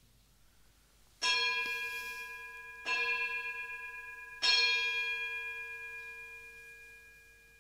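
Altar bell struck three times, about a second and a half apart, each ringing tone slowly dying away; the third rings on the longest. It marks the elevation of the chalice just after the consecration at Mass.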